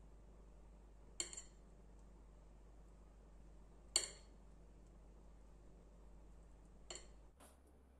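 A metal spoon clinking sharply against a dish three times, a few seconds apart, as cream is spooned out, over a faint steady hum.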